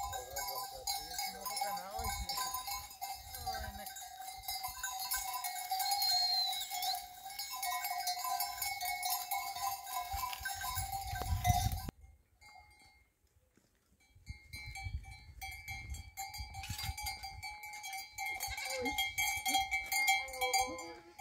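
Neck bells on a flock of sheep and goats, clanking and ringing unevenly as the animals move. The sound cuts off suddenly about halfway through, then resumes a couple of seconds later.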